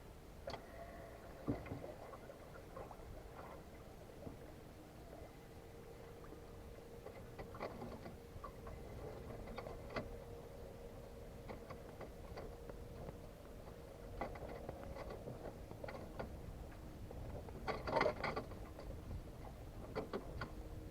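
Sounds aboard an SJ23 sailboat under way: water against the hull with scattered knocks and clicks from the boat's fittings, over a faint steady hum. A louder burst of knocking comes about eighteen seconds in.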